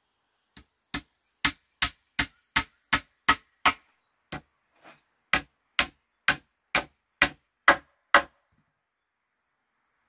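Hammer blows on wood: a steady run of about eighteen sharp knocks, two to three a second, with a brief pause midway, as wooden slats are fixed onto a bamboo pole. The blows stop near the end.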